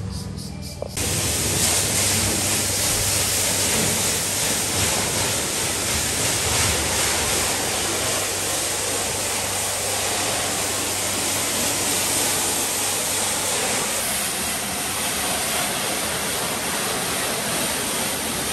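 Pressure washer spraying a hard jet of water against a boat hull: a steady hiss that starts about a second in and holds without a break.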